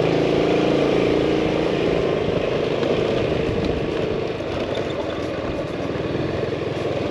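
Yamaha scooter's engine running as it rides along slowly, with road and wind noise. The engine hum is clearest in the first couple of seconds, then blends into a rougher rumble.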